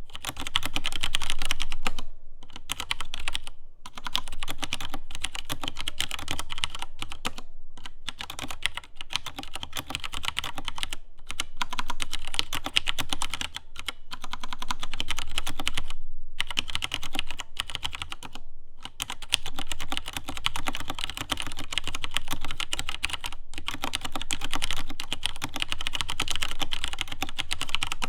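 Typing on a Filco Minila Air compact mechanical keyboard with Cherry MX Brown tactile switches: a fast, continuous run of key clicks and clacks, broken by a few short pauses.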